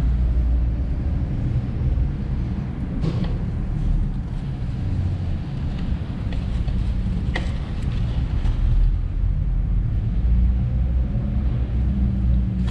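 Steady low rumble, with a few short sharp clicks of hands and parts being handled, the clearest about three and seven seconds in.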